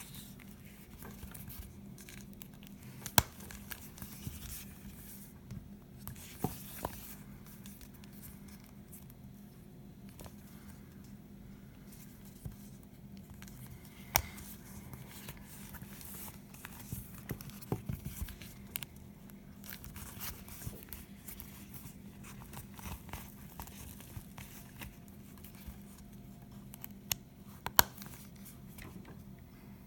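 A new wallet being handled close up: rustling and scraping with a few sharp clicks, over a faint steady low hum.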